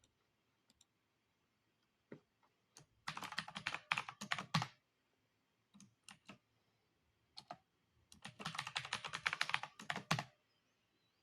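Typing on a keyboard: a few scattered single key clicks, then a quick run of keystrokes about three seconds in, and a longer run of rapid keystrokes about eight seconds in lasting some two seconds.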